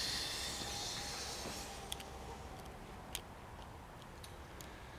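Rustle of clothing and an office chair as a man sits down, fading over about a second and a half, followed by a few faint clicks.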